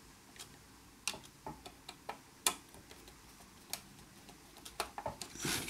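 Scattered small clicks and taps of parts being handled and fitted back on a radio chassis, irregular and a second or so apart, with a quick run of clicks and a short rustle near the end.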